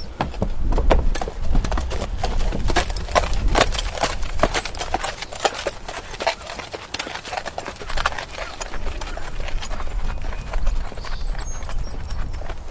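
A horse walking, its hooves striking the ground in a clip-clop of sharp, irregular footfalls over a steady low rumble.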